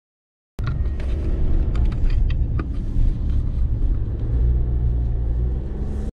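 Suzuki Jimny JB64 driving along a road, heard through a camera mounted above its hood: a loud, steady deep rumble of wind and road noise with a few clicks in the first couple of seconds. It starts abruptly just after the start and cuts off just before the end.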